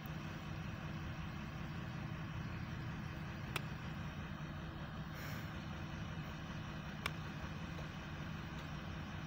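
HŽ series 7122 diesel railcar's engine running steadily with a low, even drone. Two sharp clicks, about three and a half and seven seconds in, and a short hiss about halfway.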